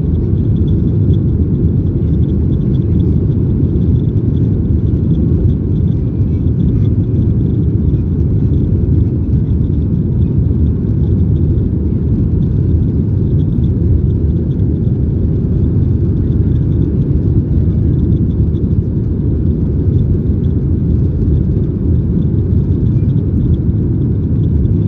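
Steady, loud cabin rumble of a Boeing 737-800 climbing after takeoff, heard from inside the cabin by the wing. It comes from the CFM56-7B engines at climb power and the rush of air, with a faint high whine above it.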